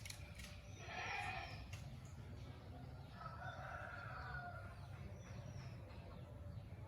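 A rooster crowing faintly: a long drawn-out crow about three seconds in, after a shorter call near the first second.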